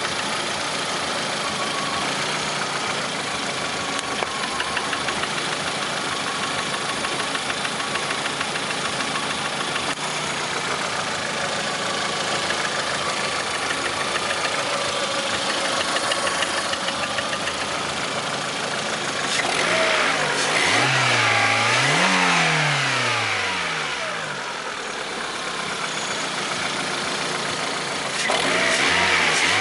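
Lada Priora's 1.6-litre 16-valve VAZ-21126 four-cylinder engine idling with a steady rapid knock. It is revved up and down twice about two-thirds through and revved again near the end. The owner blames the knock on the Suprotec engine additive and suspects the hydraulic lifters or the piston group.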